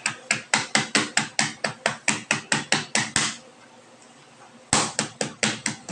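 Kitchen knife rapidly pounding boneless chicken against a plastic cutting board to tenderize it, about five sharp knocks a second. The knocking stops for about a second and a half past the middle, then starts again.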